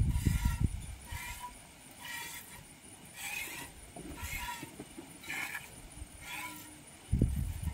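Goat being milked by hand: short hissing squirts of milk into a pail, about one a second. Low bumps at the start and near the end.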